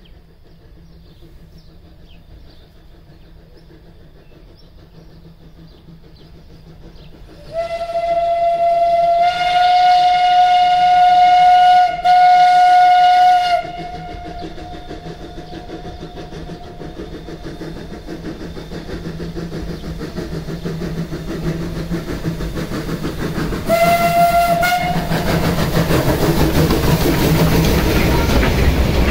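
Metre-gauge steam locomotive blowing its whistle: one long blast of about six seconds, then a short second blast. Between and after the blasts the train's running grows louder as it nears, and the locomotive and its coaches run past close by.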